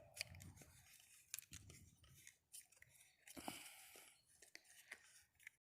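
Near silence with faint scattered clicks and rubbing: hands fiddling with the stuck plastic top of a can of Fix-a-Flat tire sealant.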